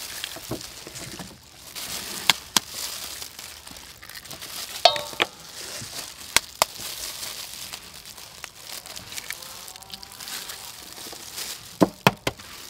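Eggs being cracked into a stainless steel bowl with plastic-gloved hands: scattered sharp taps and clicks of shell on the bowl, one about five seconds in with a brief metallic ring, over the crinkle of the plastic glove.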